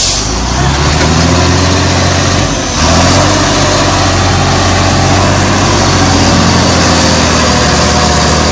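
Heavy truck's diesel engine running hard under load as the truck pulls through the mud. Its note drops briefly about two and a half seconds in, then picks up again and holds steady.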